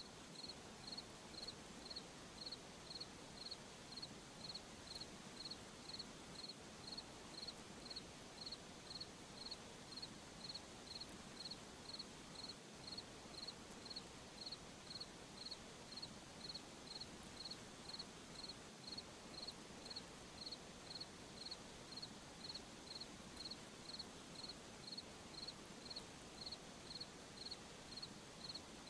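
A cricket chirping steadily at night: short, high, evenly spaced chirps, about three every two seconds, over a faint steady hiss.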